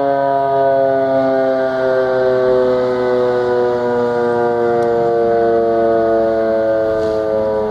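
Federal Signal Model 5 electromechanical siren sounding its noon signal: a loud, steady wail that slowly falls in pitch as the rotor winds down.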